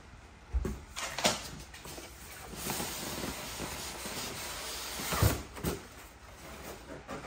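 Polystyrene foam packing insert rubbing and scraping against the cardboard of a TV box as it is worked loose and lifted out. There are a few knocks of foam and cardboard in the first second and a half, a longer scraping stretch, and a couple of thumps about five seconds in.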